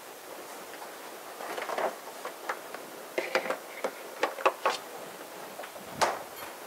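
Refrigerator door being used: a run of light clicks and knocks as things are handled at the open fridge, then a sharper knock about six seconds in as the door is shut.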